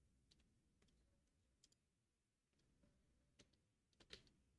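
Near silence with a few faint, irregular computer-mouse clicks.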